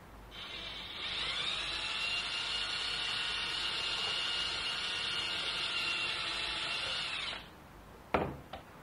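Handheld cordless drill spinning up with a rising whine, running steadily for about six seconds while drilling down into the RC truck's body, then stopping. Two sharp knocks follow near the end.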